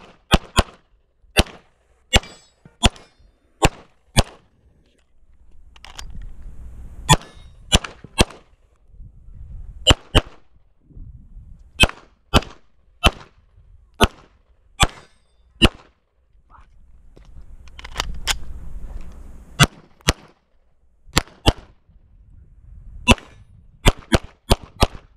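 CZ SP-01 Shadow 9mm pistol firing a practical-shooting course of fire, about thirty shots, mostly in quick pairs. Two breaks of a second or two with low rustling noise come as the shooter moves between positions.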